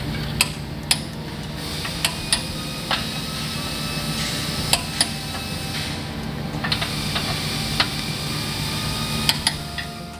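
Hand ratchet being worked on a suspension mounting bolt: about a dozen sharp metal clicks, unevenly spaced, over a steady low hum.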